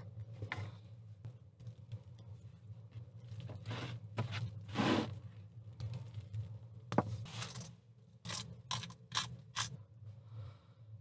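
Hand pepper mill grinding peppercorns in four quick ratcheting twists about three-quarters of the way through. Before that, scattered rustling and scraping from handling the raw meat and opening a shaker.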